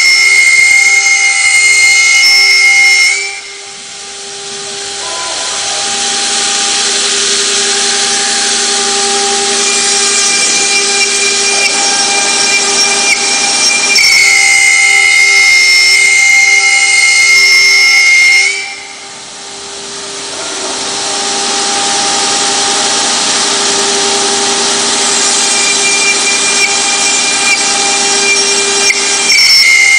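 The electric spindles of a multi-spindle CNC router running and boring into a wooden board: a loud, high-pitched whine over a rasping cutting hiss. It drops off sharply about three seconds in and again around nineteen seconds, building back up gradually each time, in cycles roughly fifteen seconds apart.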